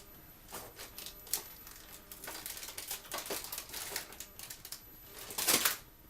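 Objects being rummaged through and moved: an irregular string of clicks, knocks and rustles, loudest as a burst of rustling about five and a half seconds in. Under it runs a faint, steady high-pitched tone from a sound grenade app playing on a hidden iPod.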